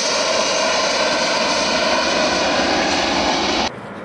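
Airliner's engines running loud and steady with a layered whine, cut off abruptly near the end.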